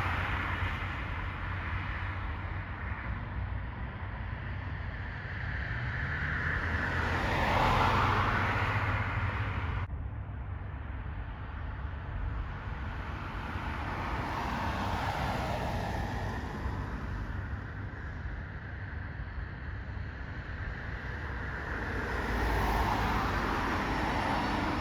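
Road traffic: cars passing by one after another over a steady low rumble, each rising and fading over a few seconds.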